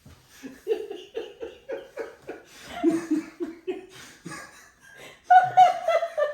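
A woman laughing helplessly in short, rhythmic bursts, about three a second, breaking into higher, louder laugh-cries about five seconds in, at a frosting mess.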